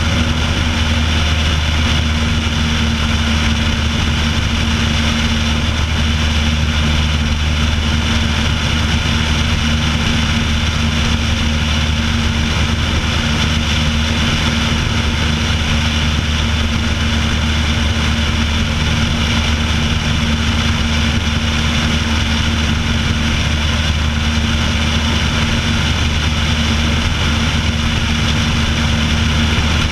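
Piper Pacer's engine and propeller droning steadily in level flight, with a constant rush of wind noise over the outside-mounted microphone.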